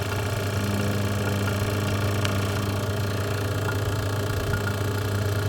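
HVAC vacuum pump running steadily, a low even hum, pulling an air-conditioning system down into deep vacuum.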